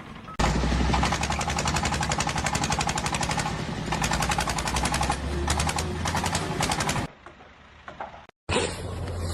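Rapid, evenly spaced mechanical hammering with a low hum under it, for about six and a half seconds, then it cuts off. A steady engine hum starts near the end.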